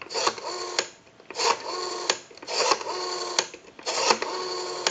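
Western Electric 500 rotary telephone dial being pulled round and released about four times, each return a short whirring buzz that ends in a click. The dial returns smoothly.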